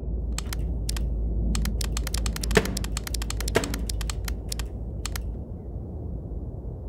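Fingers clicking and tapping on a desktop PC tower case: a quick, irregular run of sharp clicks, densest mid-way, with two louder clicks about two and a half and three and a half seconds in, over a steady low hum.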